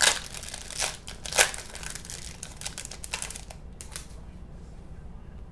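Foil trading-card pack wrapper being torn open and crinkled, with sharp crackles for the first three and a half seconds, then only faint rustling.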